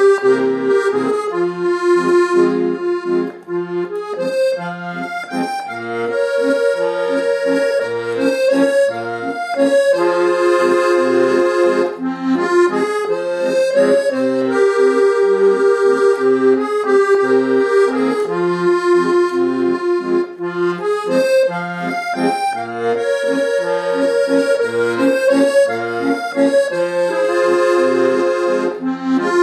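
Accordion playing a song melody with chords and a steady oom-pah bass accompaniment, without singing.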